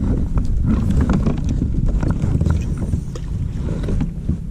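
Wind buffeting the microphone as a heavy rumble, with scattered knocks and rustles of handling.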